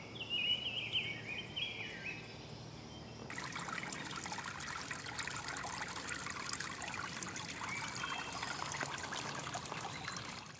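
A bird singing quick chirping phrases for the first couple of seconds. Then, about three seconds in, an abrupt change to a shallow woodland brook trickling steadily, fading out at the end.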